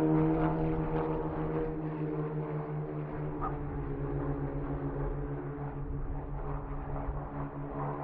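Autonomous Indy-style race car engine running at a steady, unchanging pitch, slowly fading.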